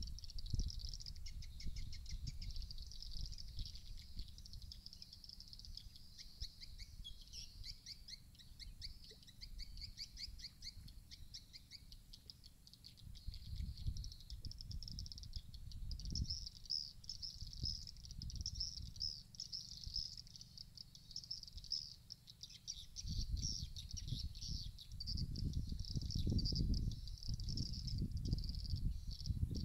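Swiftlet-house lure sound: a dense, high, continuous twittering chatter of swiftlet calls, with a few lower falling chirps about a quarter of the way in. Wind rumbles on the microphone, strongest in the last third.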